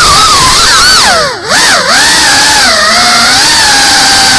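FPV racing drone's brushless motors and propellers whining loudly, recorded by the onboard camera, the pitch swinging up and down with the throttle. The pitch and level drop sharply for a moment about a second and a half in as the throttle is chopped, then the whine climbs back and holds steadier.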